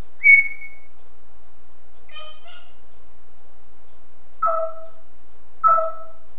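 African grey parrot calling: one short, clear whistle a moment in, the loudest sound, then two brief calls full of overtones around two seconds, and two matching lower calls about a second apart near the end.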